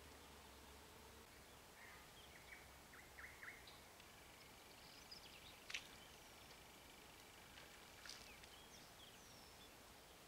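Near silence with faint, scattered bird chirps, some sweeping downward, and a faint steady high tone in the second half. Two soft clicks come just before and after the middle.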